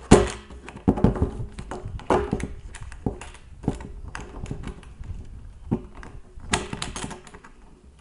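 Hinged lid cut into a plastic 55-gallon drum being shut and handled: a sharp plastic knock at the start, then scattered clicks and knocks of the lid and its metal hinges.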